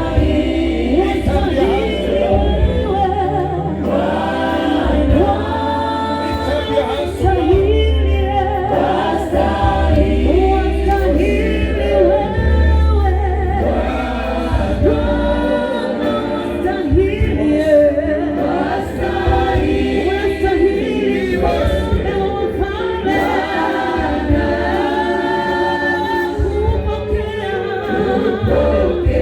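A group of voices singing a gospel worship song over a deep, sustained bass accompaniment.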